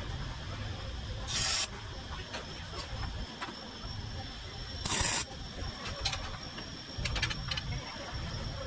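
Arc welder laying short tack welds on a steel box-tube frame: two brief loud hissing bursts, about a second and a half in and again about five seconds in. Between them come light clicks and taps of metal, over a faint steady high whine.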